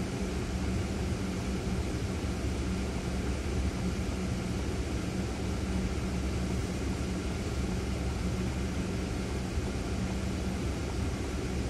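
Ford Fiesta idling at a standstill, heard from inside the cabin: a steady low engine hum with no change in pitch.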